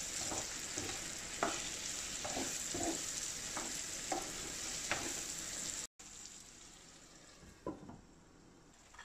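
Diced potatoes, peppers, onion and tomatoes sizzling in a granite-coated frying pan while a spoon stirs them, with scattered knocks of the spoon against the pan. The sizzle cuts off suddenly about two-thirds of the way through, and a single knock follows as the glass lid goes onto the pan.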